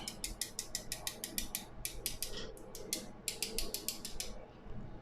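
Rapid, even ticking of a bicycle rear hub's ratchet pawls as the half-laced Raleigh Chopper wheel turns, with a short pause about halfway and the ticking stopping shortly before the end.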